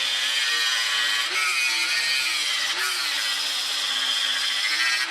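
Power grinder grinding a steel block flat: a steady hiss of metal on abrasive over the motor's hum, whose pitch dips and rises as the grinder is pressed into the work.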